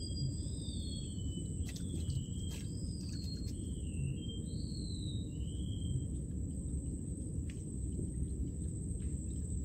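Wind rumbling on the microphone, with a bird whistling wavering, gliding phrases over the first six or so seconds, and a thin steady high-pitched insect drone beneath.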